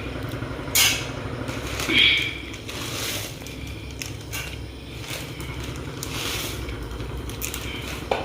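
Dry Maggi noodle cakes being added to a kadhai of water at a light boil: a few sharp knocks and short scraping and rustling noises against the pan, over a steady low background.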